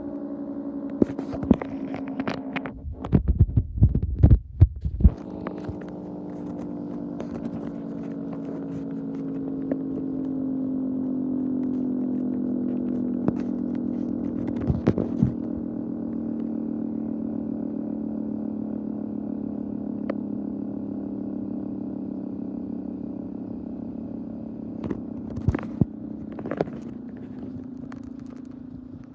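Federal Signal 3T22 three-tone siren sounding its chord steadily, the sound swelling for about ten seconds and then slowly easing. A few low thumps on the microphone come in the first five seconds.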